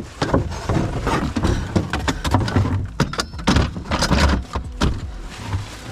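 Irregular clunks, knocks and rattles of a car jack and other gear being handled in a car's boot.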